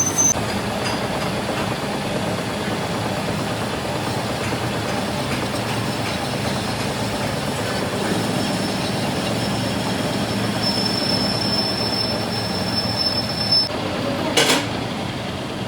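Steady heavy machinery noise, with a thin high squeal for about three seconds and a sharp clack about a second after it stops.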